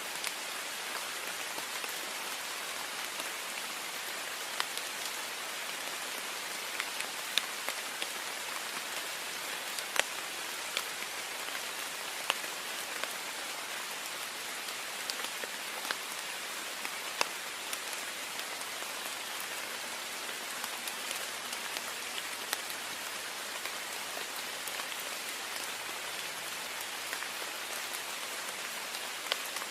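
Heavy rain pattering steadily on a window pane, a dense hiss with scattered sharper drop hits.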